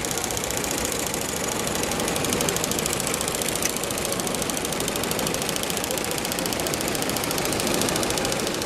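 Cornelli chain-stitch embroidery machine running at speed, its needle beating a fast, even rhythm as it stitches, driven by its 400 W motor under the table.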